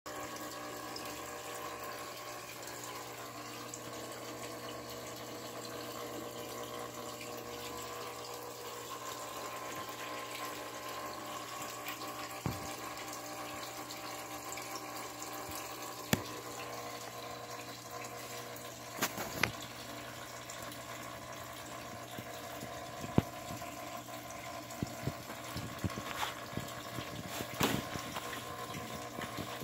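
A steady machine hum with a watery rush, like a small pump running, under sharp clicks and scrapes. The clicks come singly at first and crowd together near the end, as a rabbit scrabbles and digs at the floor mat and bars of its pen.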